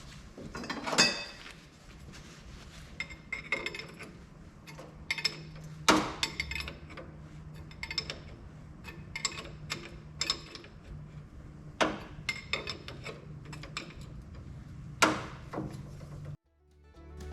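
A wrench clinking and clicking against a steel hydraulic quick-connect coupler and its fitting while the coupler is threaded on and tightened, with a few sharper metal knocks.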